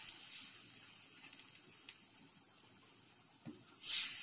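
Water just poured into a hot pan of fried onions and spices, the sizzle dying down to a faint hiss. Near the end, a short scrape of a spoon stirring the pan.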